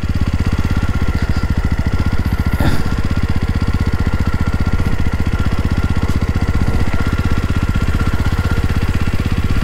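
Jawa 42 motorcycle's single-cylinder engine running steadily while riding, heard close up from the bike, with an even throb.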